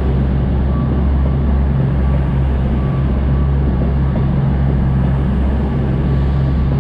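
Diesel passenger train running along the line: a steady rumble with a low, even engine drone.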